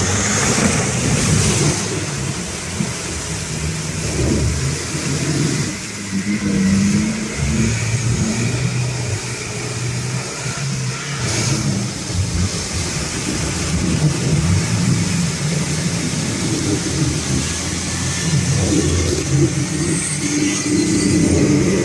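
Nissan Patrol Y61's ZD30 four-cylinder turbodiesel engine revving up and down under load as the lifted 4x4 churns through deep mud and ice.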